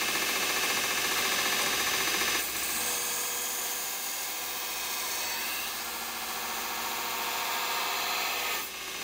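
Belt grinder running with an 80-grit Norton Blaze belt, a steel railway spike blade ground against it in steady passes, a constant hiss over the motor's hum. The grinding eases briefly about two and a half seconds in and again near the end.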